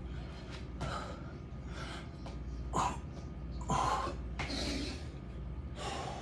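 A man breathing hard during burpees, with forceful exhales about once a second; the loudest come about three and four seconds in.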